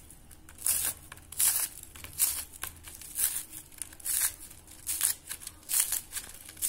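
Hands tearing dry-roasted slices of bread into small pieces: a string of short tearing sounds, roughly one a second.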